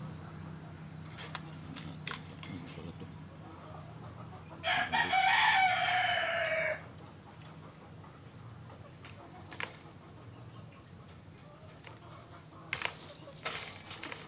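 A rooster crows once, for about two seconds, roughly a third of the way in, its call ending on a falling note. Around it come a few scattered light metallic clicks from the wire dog cage's panels being handled.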